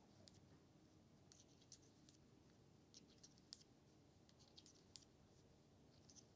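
Near silence with faint, irregular clicks of metal circular knitting needles tapping together while purling bulky yarn.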